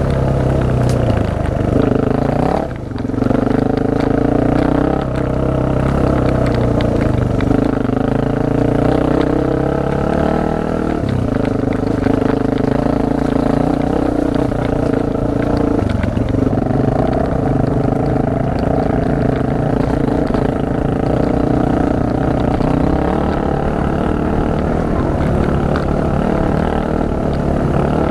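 Honda single-cylinder four-stroke trail bike engine running under load on a rocky climb, its revs holding and then stepping up and down with the throttle and gear changes, with a brief drop in revs about three seconds in.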